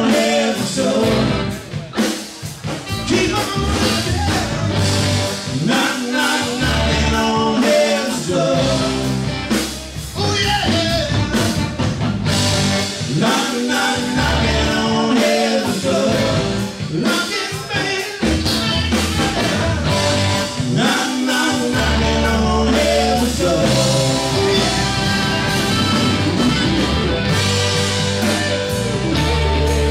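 A live rock and blues band playing at full volume: electric guitars, bass guitar, drum kit and saxophone, with the saxophone or a voice carrying the melody.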